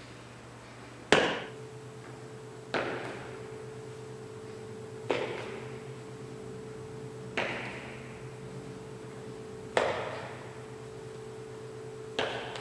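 Sharp knocks in a steady rhythm, six in all, about one every two and a half seconds, each ringing briefly in the room: the body coming back down on the floor with each rep of a weighted single-leg glute bridge. A steady low hum runs underneath.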